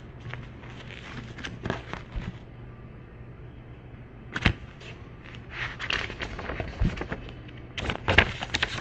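Quiet room tone: a steady low hum with a few scattered soft clicks, one sharper click about halfway through.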